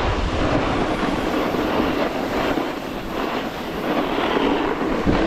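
Snowboard sliding down firm groomed snow: the board's base and edges make a steady, rough scraping rumble, with wind on the microphone.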